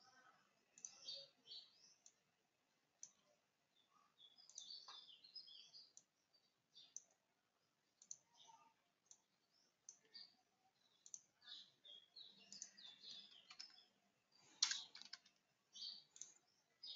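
Near silence, broken by faint scattered high chirps and soft clicks, with one sharper click about three-quarters of the way through.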